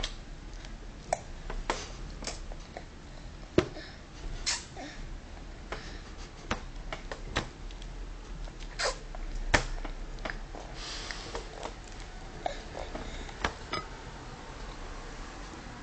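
Toddler eating a piece of meat by hand: irregular small smacks and clicks of mouth and food, a few sharper than the rest.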